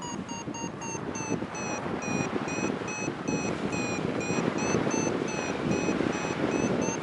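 Paragliding variometer beeping rapidly, about three short beeps a second at a high, fairly steady pitch, the tone it gives while climbing in lift. Heavy wind noise on the microphone runs underneath.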